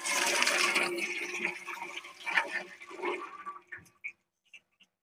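A rush of running water for about three and a half seconds, then a few light clicks and knocks.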